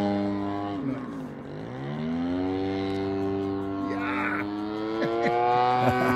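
Engine and propeller of a radio-controlled Pitts biplane model flying overhead, a steady buzzing note. About a second in, its pitch and loudness drop, then climb back and keep rising gradually.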